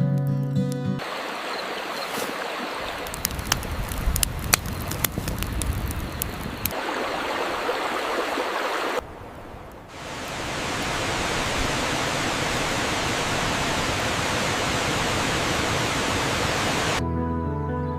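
Waterfall rushing in a steady, even hiss. In the first half a campfire crackles over it with sharp pops. After a brief dip about nine seconds in, the water sound carries on alone, steadier.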